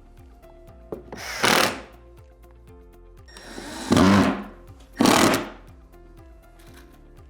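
Impact drill driving three screws into a metal cabinet corner bracket in three short runs, about a second and a half apart, over background music.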